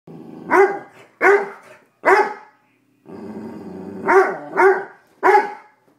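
German shorthaired pointer growling and barking quite loudly: a low growl, then three barks, another growl, then three more barks. He is alarmed by a raw chicken foot that he is afraid to touch.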